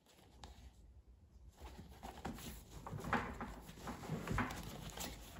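Irregular scratchy rustling and scraping of a fabric car-seat cover as hands tuck its edge in along the plastic seat trim, starting about a second and a half in.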